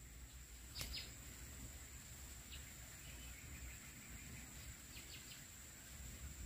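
Faint forest ambience: a steady high-pitched insect drone, with a few short high chirps and a single sharp click about a second in.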